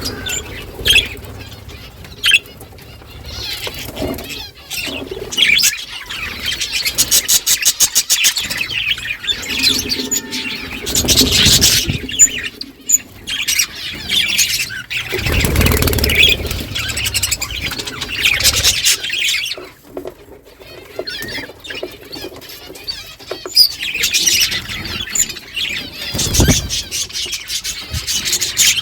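A flock of budgerigars chirping and chattering continuously, many birds at once, with occasional flutters of wings.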